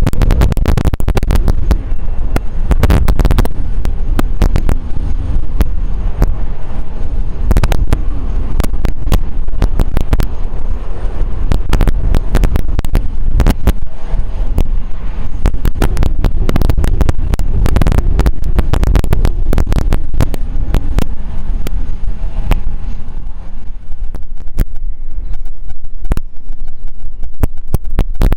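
Wind buffeting an outdoor camera microphone: a loud, steady low rumble with constant crackling.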